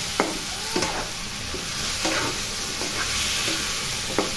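Mixed vegetables and masala sizzling in a kadhai, with a spatula now and then scraping and knocking against the pan as they are stirred. The masala is being roasted with a little water added.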